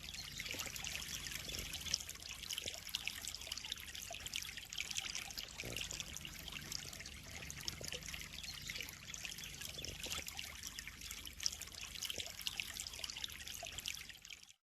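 Water trickling and splashing steadily into a koi pond, a continuous patter of small drops that fades out near the end.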